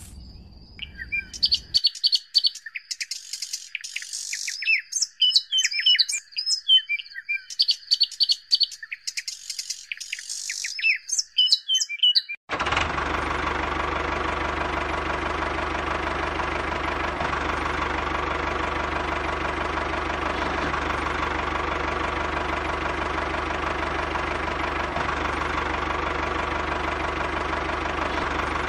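Birds chirping and twittering in quick bursts for about twelve seconds. Then a steady, even engine-like hum cuts in suddenly and runs on without change.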